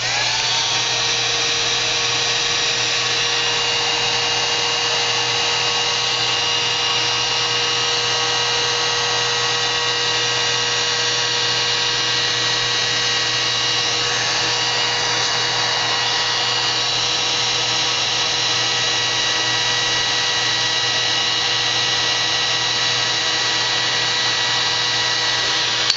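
Electric heat gun running steadily, its fan blowing with a constant whir and a few steady whining tones.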